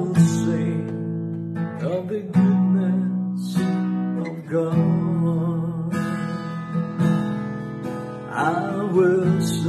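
Acoustic guitar strummed in chords, a new strum roughly every second, the chords ringing between strums. A man's singing voice comes in briefly near the end.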